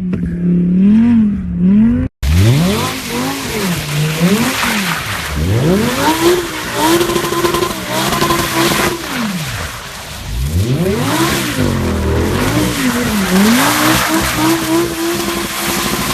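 Audi R8 engine revving hard, its pitch climbing and falling over and over, while spinning tyres squeal and scrub underneath. The sound cuts out for an instant about two seconds in, and the tyre noise is heavy from then on.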